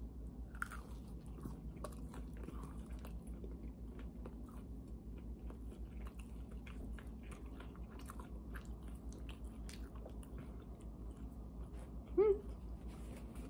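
Two people chewing breaded chicken bites coated in dipping sauce, with faint wet mouth clicks throughout. A brief voiced 'mm' comes near the end.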